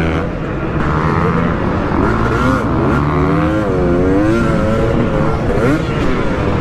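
Dirt bike engine being ridden hard, revving up and down with the throttle, its pitch rising and falling every second or so.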